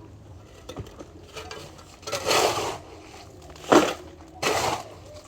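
Shovel scraping through concrete mix in three gritty strokes, the middle one short and sharp.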